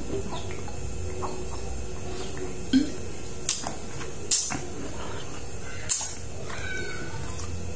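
A man drinking soda from a glass bottle close to the microphone: a few short gulps, lip smacks and sharp clicks, over a steady low hum.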